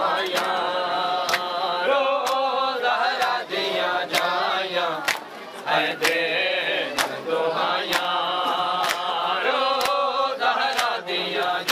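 Male voices chanting a noha, a mourning lament, cut by sharp hand-slaps of matam chest-beating that land in a steady beat about once a second.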